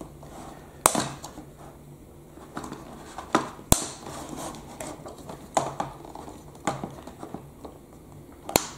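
Small metal tool scraping and levering at the plastic clip tabs of a Bruder toy telehandler's chassis, with about half a dozen sharp plastic clicks as the tabs are pushed back and released, the sharpest just under four seconds in.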